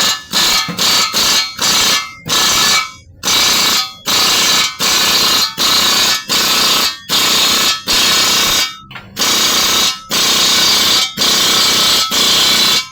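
A pneumatic air tool run in about fifteen short bursts, each a loud hissing blast lasting under a second, with brief gaps between them.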